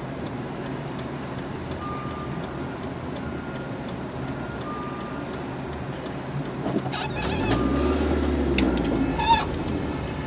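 Steady car engine and road noise heard from inside a moving car in city traffic. About seven seconds in, a deeper engine rises in pitch and grows louder, then holds, with a couple of sharp clatters.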